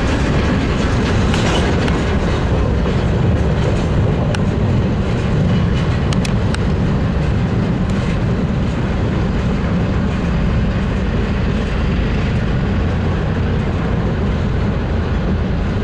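Freight train rolling past close by: a loud, steady rumble of wheels on rail with clickety-clack over the joints and a few sharp clicks a few seconds in.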